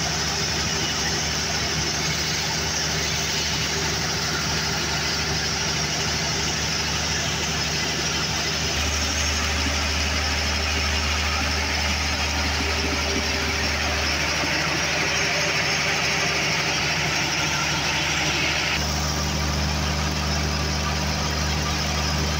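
Cummins diesel generator engine running steadily at its governed 1500 rpm under electrical load, with its turbocharger working hot. The tone of the running shifts abruptly twice, about a third of the way through and again near the end.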